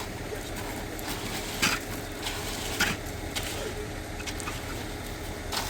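A steady low engine hum, with four or five brief scraping sounds spread across it.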